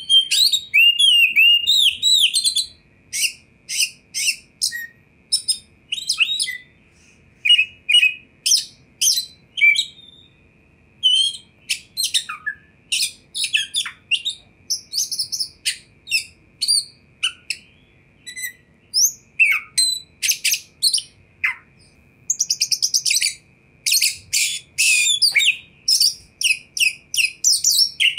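Oriental magpie-robin (kacer) singing a long, varied song of rapid, sharp high notes and quick whistled glides, with short lulls about a third and three quarters of the way through.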